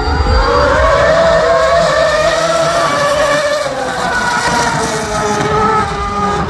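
Ferrari Formula 1 cars passing at speed on the track. The engine note rises over the first second or two, then falls away gradually.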